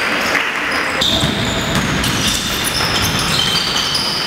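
Basketball game play on an indoor court: the ball bouncing and players' sneakers squeaking on the floor in short high squeals.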